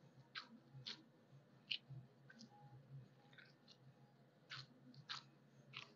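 Gloved hands kneading a butter-rich dough on a marble slab: about eight faint, short sticky clicks and smacks in near silence.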